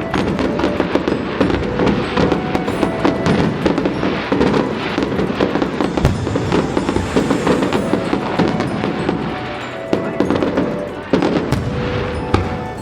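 Fireworks barrage: dense, rapid crackling and popping of aerial shells, with a sharp bang at the start and another about eleven seconds in. Music plays underneath.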